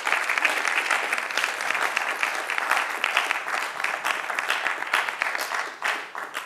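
Audience applauding, many hands clapping at once, easing off a little near the end.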